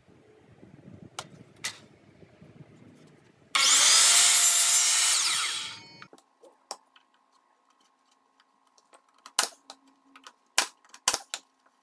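A DeWalt DW716 12-inch compound miter saw cuts through a piece of wood stair trim molding in one loud stroke of about two and a half seconds, then winds down. It comes after a couple of light clicks while the piece is set on the saw, and is followed near the end by several sharp clicks as the piece is fitted.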